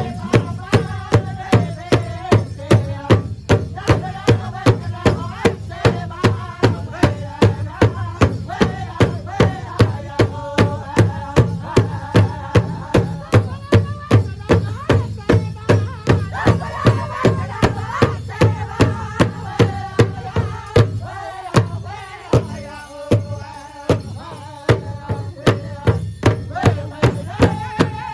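Powwow drum group: a large drum struck in a steady, even beat, about two and a half strikes a second, with several voices singing over it.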